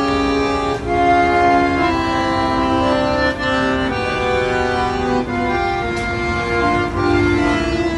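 Piano accordion playing a slow tune of held chords under a melody, each note sustained and changing about once a second.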